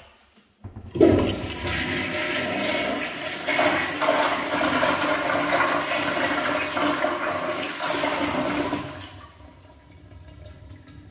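A 1960s Kohler Welland toilet flushing through its chrome flushometer valve. A loud rush of water starts about a second in, holds for about eight seconds, then falls away to a quieter trickle.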